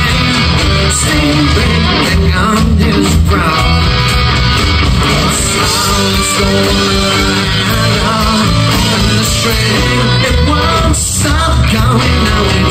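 Live rock band playing: electric guitars, bass guitar and drums at full volume, with a male lead vocal singing over them.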